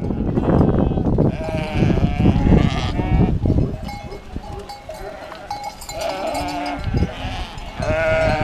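A large flock of sheep bleating as it passes, with many overlapping calls at different pitches. A low rushing noise fills the first second or so.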